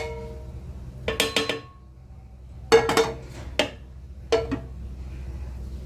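A spoon clinking and scraping against a pan in several short clusters of strikes, each ringing briefly, as fried cashews and raisins are tipped out onto rice.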